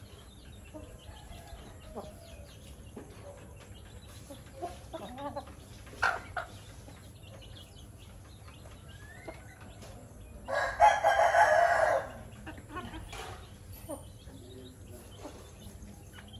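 Chickens foraging with soft, scattered clucks and a few short louder calls, then about ten seconds in a rooster crows once, for about a second and a half, the loudest sound here.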